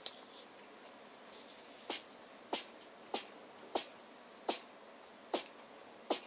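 A 22-year-old cat sneezing in a fit: seven short, sharp sneezes in a row, starting about two seconds in and coming roughly one every two-thirds of a second.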